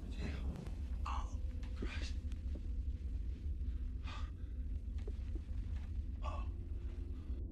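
A voice gasping: about four short, breathy gasps a second or two apart, over a steady low hum.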